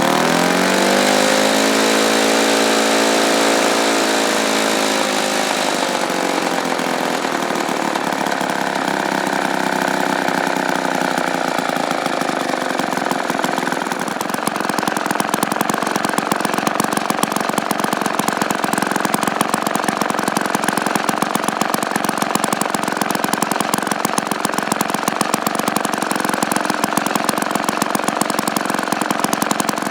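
1953 ATCO lawnmower's Villiers two-stroke engine running well. It starts at high revs, slows over several seconds, and settles to a lower, steady running speed from about halfway.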